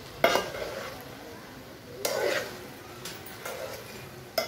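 A metal spoon knocking and scraping against an aluminium pot while sliced okra and onion are stirred with a little water, in about five separate strokes, the loudest one just after the start.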